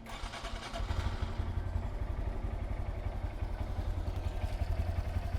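2023 Honda Grom's single-cylinder engine cranked by its electric starter, catching within about a second and settling into a steady, fast-pulsing idle: its first run on fresh oil after an oil change.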